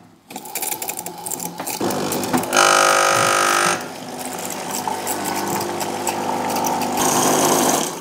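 Lelit Grace PL81T espresso machine's vibratory pump buzzing steadily while the machine is primed, pushing water out through the wand into a cup. It gets louder for about a second a couple of seconds in.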